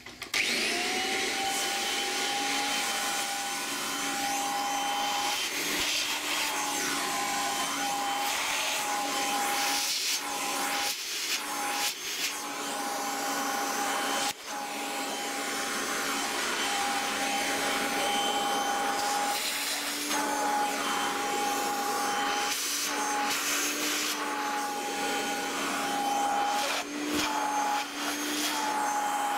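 Kirby Legend vacuum cleaner switched on about half a second in and running steadily with a whine. The whine wavers and dips briefly again and again as the hose nozzle is pressed onto a loudspeaker's dented centre dome, the suction pulling the dome back into shape.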